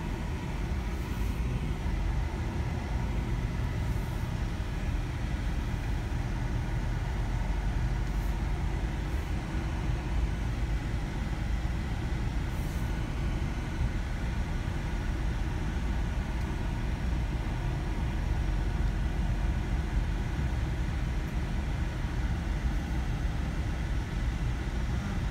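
Car being driven, heard from inside the cabin: steady engine and road noise, a constant low rumble.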